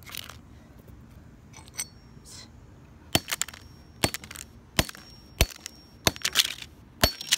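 A claw hammer striking a cracked Samsung Galaxy S3 lying on concrete: about eight sharp blows, roughly one every two thirds of a second, beginning about three seconds in, with the crack and clink of the phone's glass and casing.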